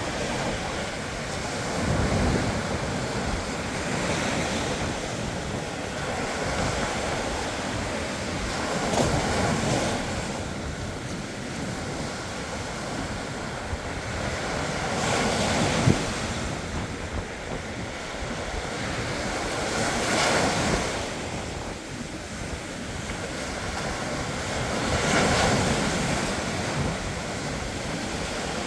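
Ocean surf breaking and washing up a beach, swelling every few seconds as each wave comes in, with wind buffeting the microphone.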